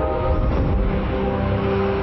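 Sci-fi spacecraft engine sound effect: a steady low rumble with rushing noise that swells briefly about half a second in, over held synthesizer music notes.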